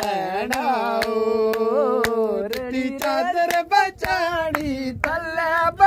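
Singing: a voice holds long, wavering notes, with a sharp beat about twice a second.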